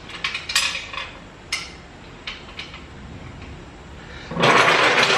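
A steel motorcycle wheel chock being handled on a steel scissor-lift deck: a string of short metal clinks and knocks, then, about four seconds in, a louder scraping slide of a second or so as it is shoved across the diamond-plate top.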